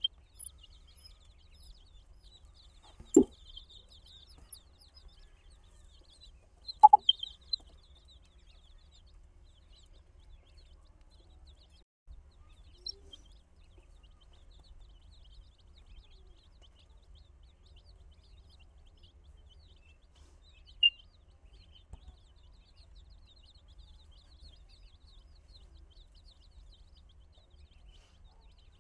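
A flock of baby chicks peeping: a steady chorus of faint, high, short cheeps. A sudden knock comes about three seconds in, a louder burst of sharp sounds around seven seconds, and a single loud high cheep later on.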